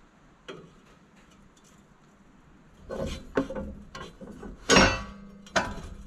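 Hands working an electrical wiring connector loose under a side-by-side: a faint click early on, then a run of sharp plastic and metal clicks and knocks from about three seconds in, the loudest near five seconds.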